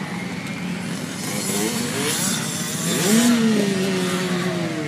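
Motocross dirt bike engines running on the track. About three seconds in, one bike revs hard, its pitch jumping up and then sliding slowly down as it takes a jump.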